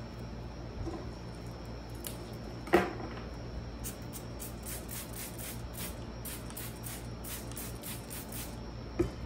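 Cut phalaenopsis orchid stems being handled and set into a plastic bucket: a sharp knock nearly three seconds in and a lighter one near the end, with soft rustling of stems and blooms in between, over a steady low hum.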